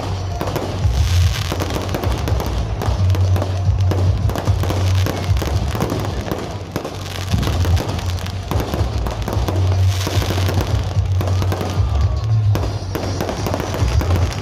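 Firecrackers and fireworks crackling in a dense, continuous run of rapid pops, with music playing underneath.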